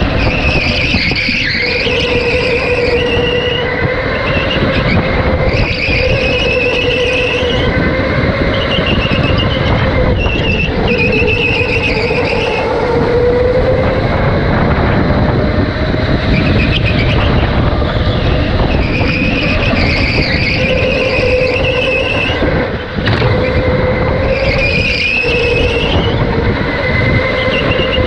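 Electric go-kart driven at racing speed: a steady motor whine that wavers with speed over a constant rushing noise, with high tyre squeal coming and going again and again through the corners.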